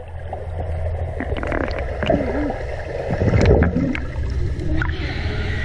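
Pool water heard underwater: a muffled, steady low rumble with gurgling and scattered bubbly splashes as swimmers kick beside a cardboard boat, getting louder about three seconds in.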